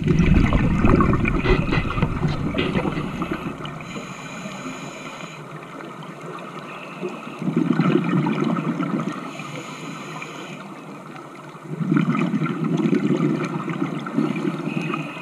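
Scuba diver breathing through a regulator underwater: three long, low surges of exhaled bubbles, at the start, around halfway and near the end, with a faint regulator hiss of the in-breath between them.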